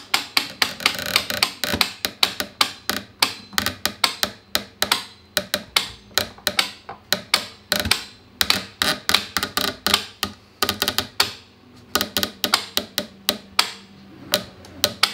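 Rapid, irregular sharp clicks and snaps, several a second and sometimes in quick clusters, from a load-test jig as the pull on a 3D-printed PLA hook is ramped up toward about 200 kg.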